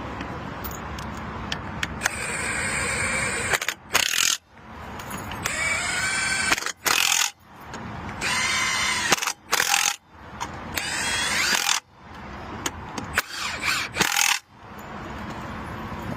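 Cordless impact wrench spinning lug nuts on a car wheel during a tire change, in about eight short runs with brief pauses between them.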